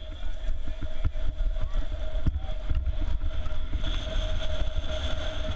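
Wind buffeting a helmet-mounted camera's microphone as a BMX bike races over the track, with short knocks from the bike and rider. A steady thin whine runs underneath and grows louder about four seconds in.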